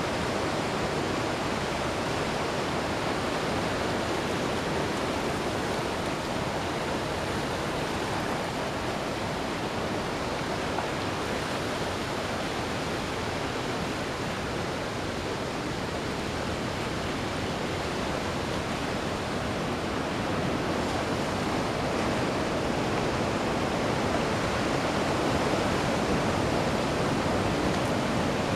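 Ocean surf: waves breaking and washing up the shore in a steady rush, growing a little louder toward the end.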